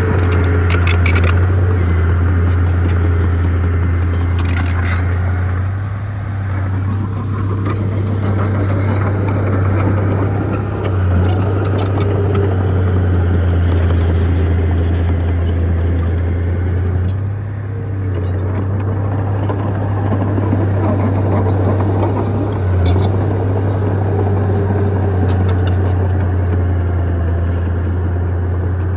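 Heavy diesel engine of earthmoving machinery running under load: a steady low drone that eases off and picks up again every five or six seconds, with sharp clanks now and then.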